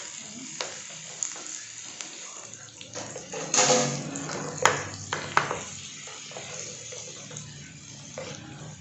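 Butter and minced garlic sizzling in a ceramic nonstick frying pan, with a plastic slotted spatula scraping and tapping against the pan as it stirs. A louder clatter comes about three and a half seconds in.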